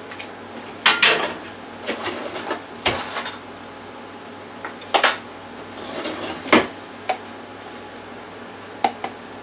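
A metal spoon clinking and clattering against stainless steel kitchenware: several separate sharp clinks at uneven intervals, the loudest about a second in and again around the middle.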